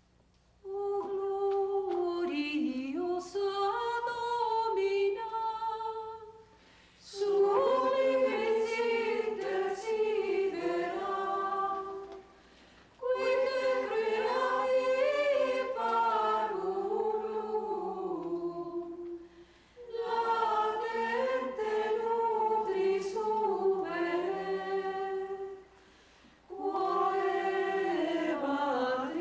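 A choir of Carmelite nuns singing a hymn unaccompanied, in long phrases of about six seconds with brief pauses between them.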